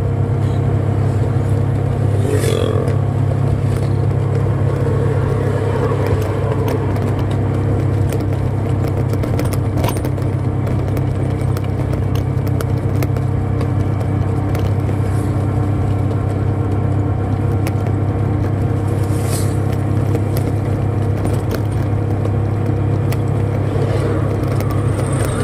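Steady engine and road noise of a moving vehicle heard from inside it, a constant low hum. A brief scrape or rattle comes about two seconds in and again near the end.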